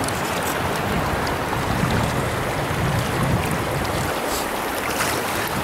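Steady rush of flowing stream water from a trout stream's run, with a low rumble swelling up about two to three and a half seconds in.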